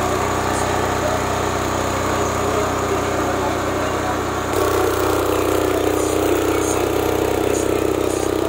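Enclosed Blackhawk 8700 W diesel generator running steadily. About four and a half seconds in its sound changes abruptly, becoming a little louder and higher.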